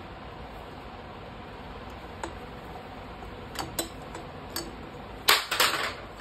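Valve spring compressor worked on a motorcycle cylinder head while a valve's locks are fitted: a few light metallic clicks, then a louder clatter of metal knocks a little past five seconds in.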